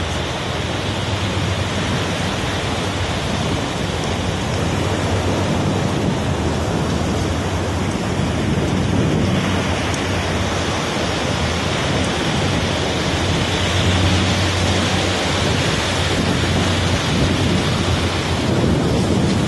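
Surf and wind buffeting the microphone on a beach: a loud, steady rushing noise with a low rumble.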